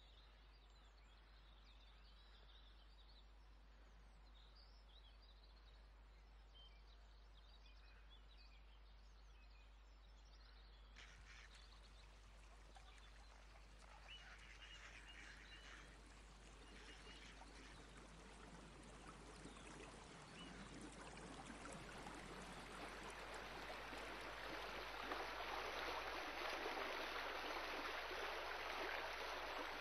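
Flowing water rushing, faint at first with a few small bird chirps, then growing steadily louder through the second half.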